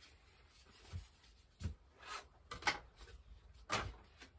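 Styrofoam packing box and foam model-airplane parts being handled: several short rubs and light knocks, the loudest a little before the end.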